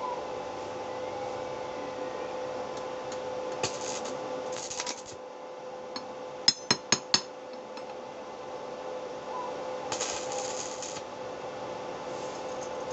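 Short bursts of hissing crackle from stick-welding tack welds on car-spring steel, three brief bursts, with a quick run of four sharp, ringing metal taps in between. A steady hum runs underneath.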